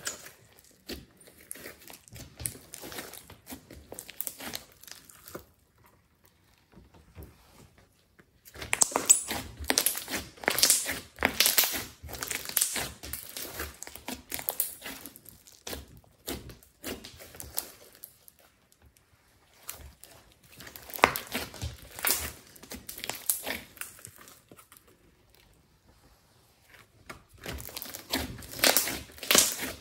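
Glossy slime mixed with clay being kneaded and squeezed by hand, giving dense crackling and popping clicks. The clicks come in bouts with short pauses: faint at first, nearly still for a couple of seconds, then loud from about eight seconds in, pausing briefly twice more.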